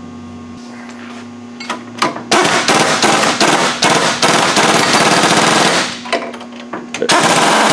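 Impact wrench hammering as it runs bolts into threaded holes to seat a front shock mounting bracket: one rattling run of about three and a half seconds, then a second run starting near the end.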